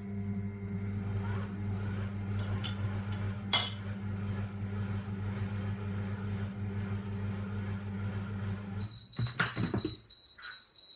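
Monsieur Cuisine food processor's motor running at speed 3, blending a thick feta and cream-cheese spread: a steady low hum with a single sharp click about three and a half seconds in. The motor stops about nine seconds in, followed by clatter as the lid is handled and a faint high steady tone.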